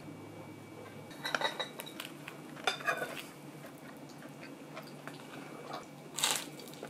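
Chopsticks clicking and scraping against a ceramic plate as food is picked up, in three short clusters: about a second in, around three seconds, and near the end.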